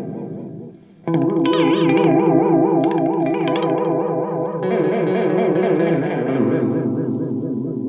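Electric guitar chords played through an Electro-Harmonix Polychorus pedal, the modulation making the notes warble up and down a few times a second. A chord fades out, a new one is struck about a second in and rings, and the chord changes again near five seconds.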